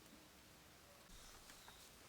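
Near silence: faint outdoor background with a few soft ticks and a brief faint high hiss about halfway through.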